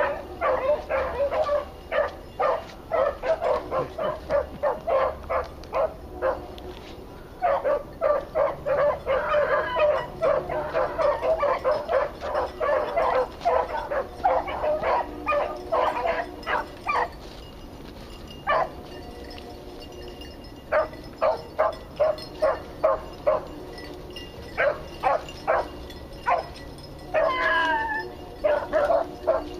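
Hunting dogs giving tongue on a rabbit chase: rapid, repeated yipping barks with a couple of short lulls and a longer wavering bay near the end.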